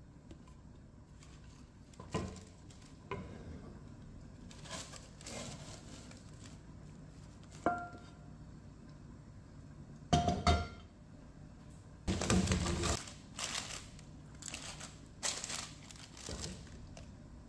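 Baking paper crinkling and rustling as bread buns in a cast iron skillet are turned over. The heavy pan knocks a few times, with a short ringing clank about eight seconds in and two louder ones near ten seconds. A longer burst of rustling follows a couple of seconds later.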